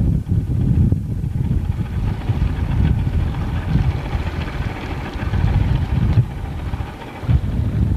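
Wind buffeting the camcorder microphone: a loud, uneven rumble, with a rushing hiss of wind or water swelling in the middle.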